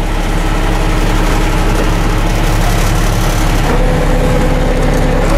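International DT466 inline-six turbo diesel idling steadily, freshly started in a 1995 International 4700 garbage truck and heard from inside the cab. A steady higher whine joins about three and a half seconds in.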